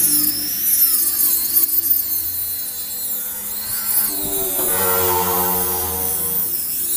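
Cordless rotary tool with a small cut-off disc cutting into the edge of a wooden board. Its high whine wavers and dips in pitch as the disc bites, sinking lower for about two seconds past the middle.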